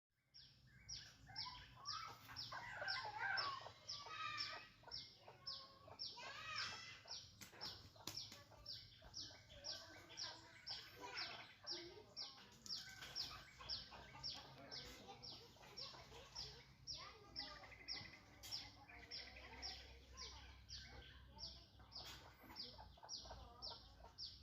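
Birds calling, with a high, short chirp repeated about twice a second throughout, over other bird calls and the clucking of fowl.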